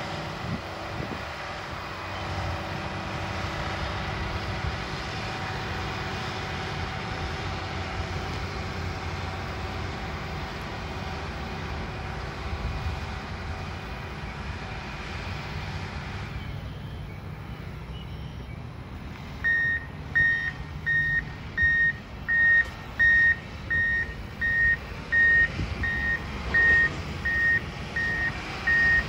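Diesel engine of a John Deere motor grader running steadily, then fading; from about two-thirds of the way in, a vehicle backup alarm beeps steadily at about one and a half beeps a second, the sign of a machine reversing.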